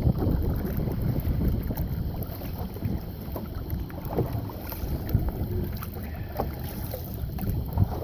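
Wind rumbling on the microphone aboard an anchored boat, with scattered small knocks and clicks.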